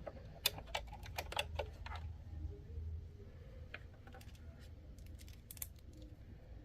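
Light clicks and taps of sewing machine parts being handled and fitted back together: a quick run of them in the first two seconds, then a few scattered ones.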